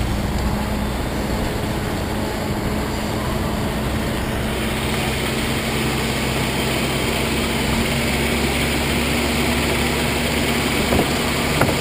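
Car driving slowly across a wooden plank bridge: a steady low engine hum under tyre and road noise. The hiss grows brighter about halfway through, and there are two faint clicks near the end.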